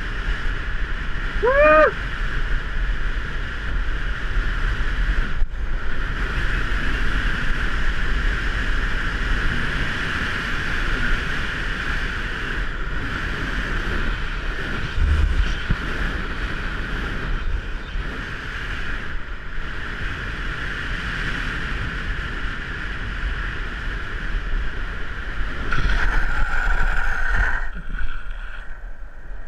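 Longboard wheels rolling fast on coarse asphalt, a steady roar with wind rushing over the microphone. A short squeal comes about two seconds in, and near the end there are about two seconds of louder, harsher wheel sliding as the rider sets a gloved hand down to slide into a corner.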